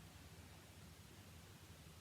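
Near silence: steady hiss with a faint low rumble, the quiet gap between a sleeping person's snores.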